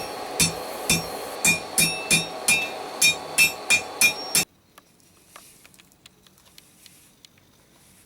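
Hand hammer striking hot steel on an anvil while forging out a tong half: about eleven ringing blows, two to three a second, that stop abruptly about four seconds in, leaving only faint clicks.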